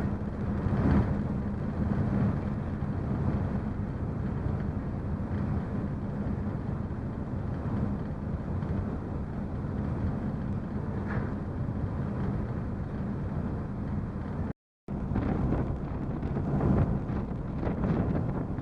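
Car ferry Toba Maru's engines droning steadily with a low hum, with wind buffeting the microphone in gusts. The sound cuts out for a moment about fifteen seconds in.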